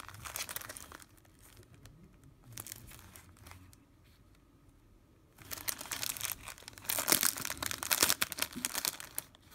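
Clear cellophane wrapper crinkling as it is handled: a short burst of crackles at first, a quieter stretch with scattered crackles, then dense, louder crinkling from a little past halfway to near the end as fingers work at its edge.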